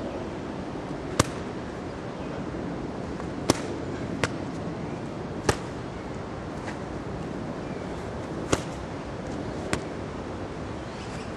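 Punches and strikes landing on a hand-held training pad: six sharp smacks at irregular spacing, over steady outdoor wind noise.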